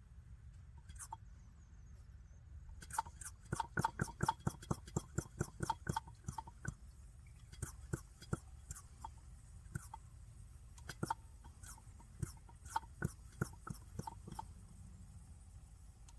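Mityvac hand vacuum pump being worked, its handle clicking in a fast run from about three seconds in and then in slower strokes, drawing diesel and air through the hose to bleed air from a newly fitted fuel filter.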